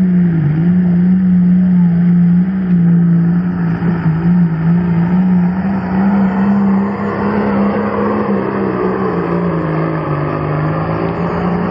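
Modified John Deere pulling tractor's diesel engine running flat out while dragging a weight-transfer sled down the track. The engine's pitch holds steady at high revs, dipping briefly about half a second in and easing a little lower in the later seconds as it works against the sled.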